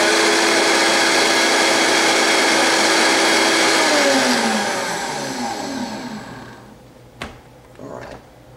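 Vitamix blender running at high speed, grinding popped popcorn into a fine flour. About four seconds in it is switched off, and its whine falls in pitch as the blades spin down. Then comes a sharp knock and a softer clatter as the plastic jar is lifted off the motor base.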